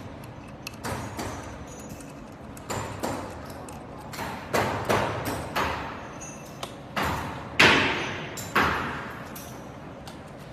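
A series of about ten sharp knocks or impacts at irregular intervals, each with a short ringing decay; the loudest two come about three quarters of the way through.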